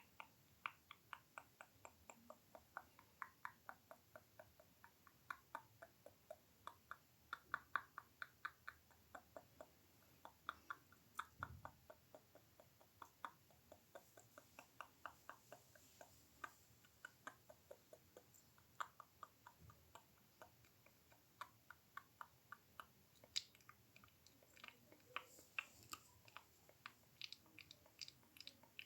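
ASMR mouth sounds close to the microphone: quick runs of small wet clicks and smacks, several a second, with short pauses between runs.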